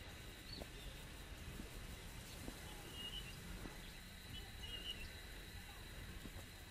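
Faint mountain-trail ambience. A steady high-pitched insect drone runs throughout, with two short bird chirps about three and five seconds in. Footsteps on stone steps fall roughly once a second over a low rumble.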